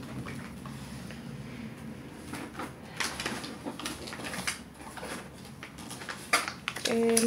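Cardboard cosmetic boxes and plastic bottles being handled and set down on a table: scattered light knocks, taps and rustles of packaging.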